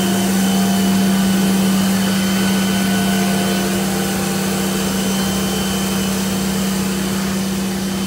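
Steady mechanical hum with a constant low tone as the Boeing 747's nose cargo door is driven closed by its powered drive.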